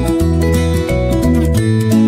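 Background music led by plucked acoustic guitar, with notes changing over a low bass line.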